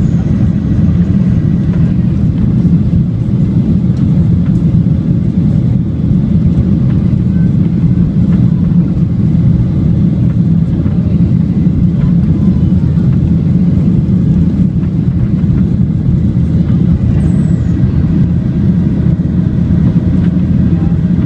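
Steady low rumble of a Boeing 737-800's CFM56-7B turbofan engines and rushing air, heard inside the passenger cabin during the climb.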